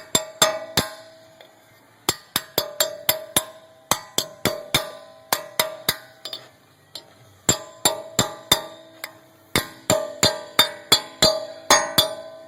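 A hammer tapping the metal dust cap onto the front wheel hub: a long series of light strikes, several a second with short pauses. Each strike leaves a ringing metallic tone.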